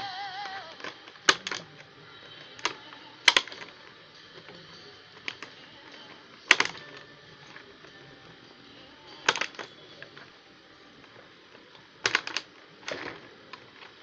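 Plastic disposable cups clicking and clacking against each other as they are handled and fitted into a ring, in single sharp clicks a few seconds apart and a quick cluster near the end.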